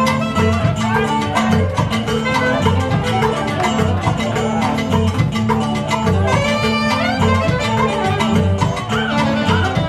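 Live band playing upbeat Latin dance music: drum kit, electric guitars and saxophone over a steady, repeating bass line.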